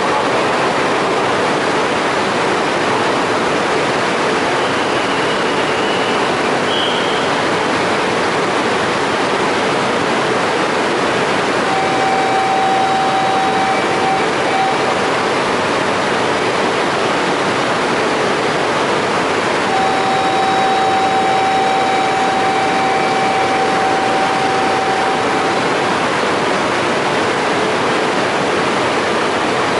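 Steady loud noise of coupled E2 and E3 series Shinkansen trains standing at the platform. Two long steady tones sound over it midway, the second lasting about six seconds.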